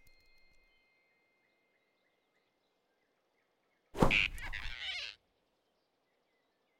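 Cartoon sound effect of a sudden grab: near silence, then about four seconds in a sharp whoosh-and-thump with a squeak on top, lasting about a second before it cuts off.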